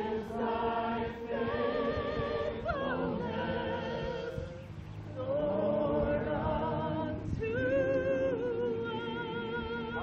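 A group of voices singing a slow worship song together, holding long wavering notes in phrases that break off every two to three seconds.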